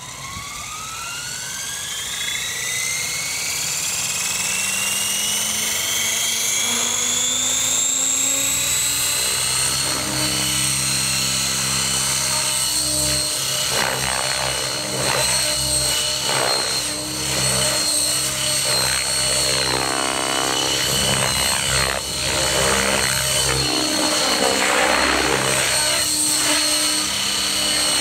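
Outrage Fusion 50 electric RC helicopter spooling up. The motor and gear whine rises steadily in pitch over the first eight seconds or so, then holds at a steady high whine. A deep rotor-blade thrum joins in, and the pitch keeps shifting as the helicopter lifts off and manoeuvres.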